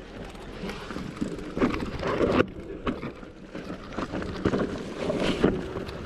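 Mountain bike ridden down a rough trail: tyres running over stones and dirt, with irregular knocks and rattles from the bike on the bumps, the louder ones about two seconds in and again past five seconds. Wind buffets the microphone.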